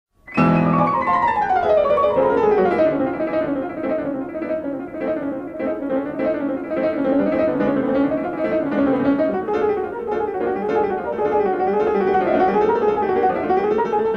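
Instrumental music on a keyboard, starting suddenly. It opens with a falling run of notes, then plays a repeating melodic figure.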